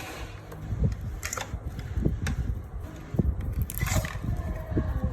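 Hard plastic and small electronic parts being handled on a work surface: irregular clicks, knocks and short scrapes.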